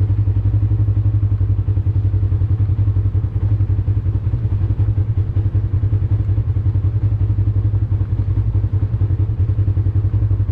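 Polaris RZR XP 1000's parallel-twin engine idling steadily on a newly replaced fuel pump.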